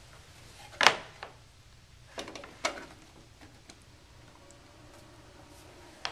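A few sharp knocks and clicks as a metal network controller is handled in its cardboard box and its AC power cord is plugged into the back. The loudest knock comes about a second in, with smaller clicks over the next few seconds.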